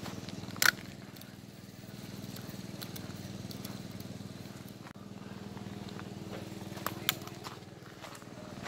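A steady low hum, even in pitch, with one sharp loud click under a second in and two quicker, lighter clicks near the end.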